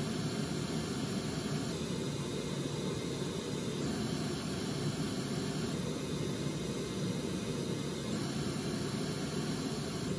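Steady test noise, a full-range hiss, played through Blue Sky Sat 6.5 studio monitors for spectrum analysis. About every two seconds the top end changes slightly as playback switches back and forth.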